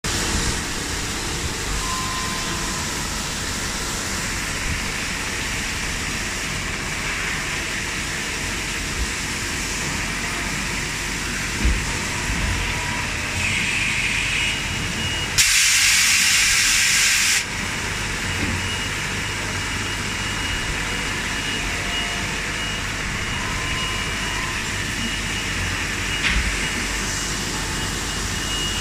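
PORTA TRO-08-N10 rotary transfer machine running under power, a steady mechanical din of its table and spindle units. About halfway through, a loud hiss starts and stops abruptly after about two seconds, with a shorter, softer hiss just before it.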